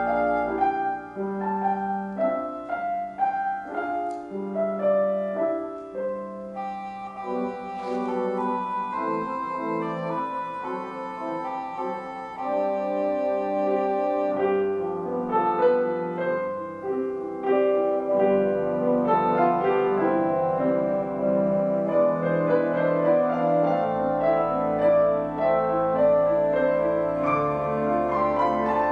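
Instrumental keyboard music, with held chords and sustained notes changing every second or two and no singing.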